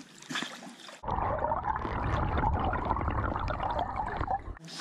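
Pool water splashing as a German Shepherd paddles, then, about a second in, the same swimming heard from underwater: a muffled low churning with bubbling, until it cuts back to surface splashing near the end.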